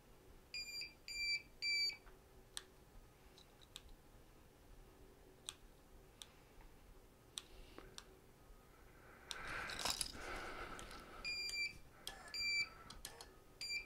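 Solax Transformer folding scooter's fold-control electronics giving short electronic beeps: three in quick succession near the start and another string of beeps near the end, while the remote key fob is tried. Sharp clicks of buttons being pressed fall between the beeps, with a brief rustle of handling about ten seconds in.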